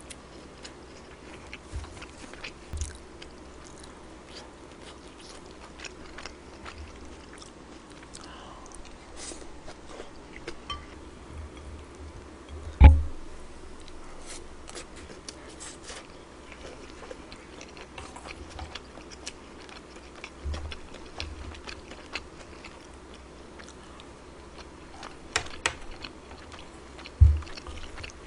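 Close-up eating sounds of someone chewing and biting kimchi fried rice with pork belly, with many small clicks throughout. A sharp knock about 13 s in is the loudest sound, and a few more knocks come near the end.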